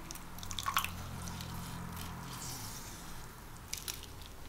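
A lime being squeezed over food: wet squelching and dripping juice, with a cluster of sharp clicks about a second in and again near the end.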